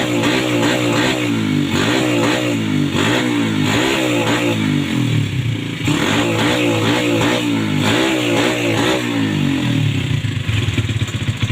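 Yamaha Vega R 110 cc single-cylinder four-stroke engine being revved with repeated throttle blips, its pitch rising and falling about once a second. Near the end it drops back to a pulsing idle. It is a test run of a bike with a stutter on acceleration ('brebet') that is put down to a fouled spark plug.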